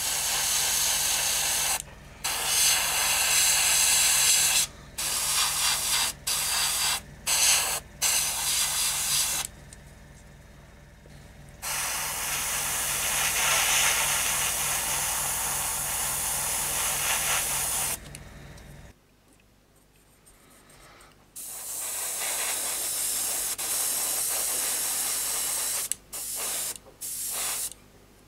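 Airbrush spraying paint, its air hiss starting and stopping with the trigger in short bursts and longer passes. Under it runs the low hum of the airbrush compressor, which cuts out about two-thirds of the way through while the spraying carries on.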